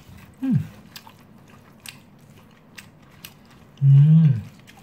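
A plastic spoon stirring rice in a styrofoam takeaway box, with faint scrapes and taps. Two short low hums falling in pitch: a brief one about half a second in and a louder, longer one about four seconds in.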